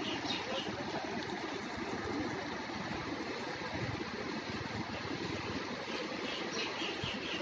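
Swollen Kaveri river in flood, its fast brown water rushing in a steady, even roar. Near the end a quick run of short, high repeated notes sounds over it.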